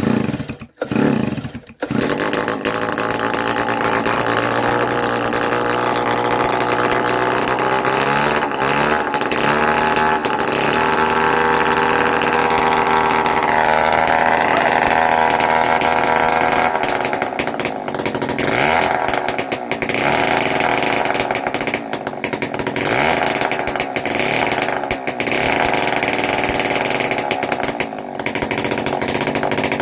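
Small Sachs Stamo two-stroke engine pull-started on part choke: it stutters a few times, then catches about two seconds in and runs on loudly and steadily. Its speed shifts a couple of times and grows uneven later on, as it runs for the first time after decades of sitting.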